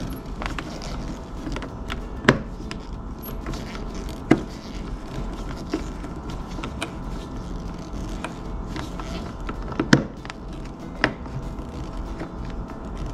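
Hand screwdriver turning the vial-adjusting screw in the metal body of an old spirit level: small scattered clicks and scrapes of the tip in the screw head, with a few sharper clicks, one each at about 2, 4, 10 and 11 seconds.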